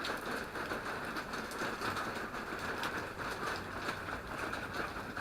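Steady rush of runoff water pouring and splashing down a cliff face, an even noise with a few faint clicks of drops.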